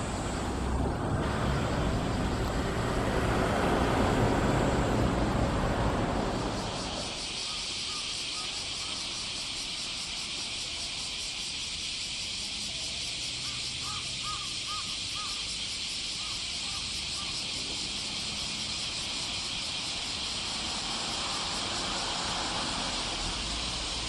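Loud, steady chorus of bear cicadas (kumazemi), a high dense hiss, coming clear once a loud low rumble dies away about seven seconds in. A bird calls in short runs of notes a little past the middle.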